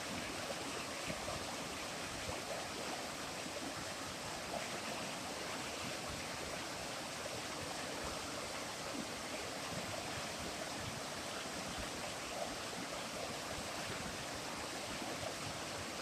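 Flowing water rushing steadily.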